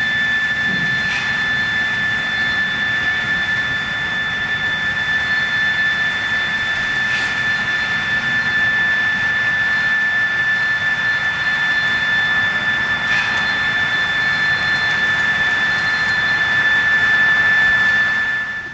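Steam venting from the sawmill's steam plant: a loud, steady hiss with an unwavering high whistle running through it.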